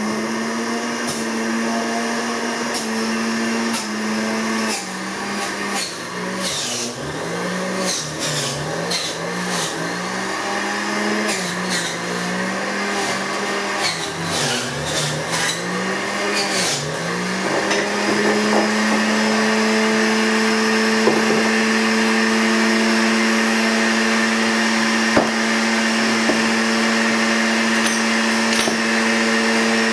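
Electric juicer motor making carrot juice: its hum repeatedly drops in pitch and recovers with knocks and rattles as carrots are pushed into it, then a little past halfway it settles to a steady, higher hum as it runs empty.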